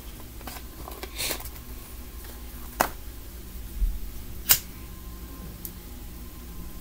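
A few sharp clicks and knocks over a low steady rumble: a short rustle about a second in, then two crisp clicks a second and a half apart with a dull thump between them.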